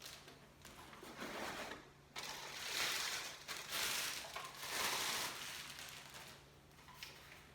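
Rustling and crinkling of packaging as the vacuum's handle is taken out of its box, in uneven swells for a few seconds.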